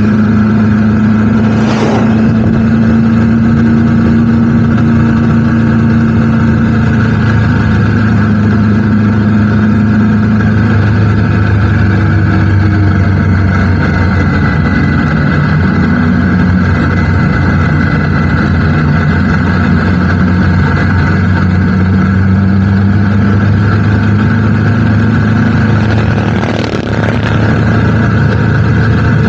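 Motorcycle engine running steadily under way, its pitch drifting a little. A short rush of noise comes about two seconds in and again near the end.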